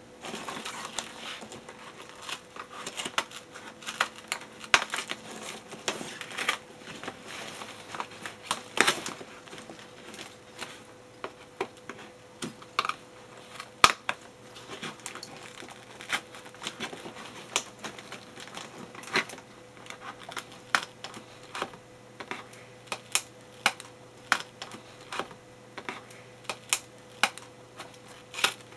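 Packing tape on a cardboard box being picked at and cut with scissors: a long run of irregular sharp clicks, snips and crackles of tape and cardboard.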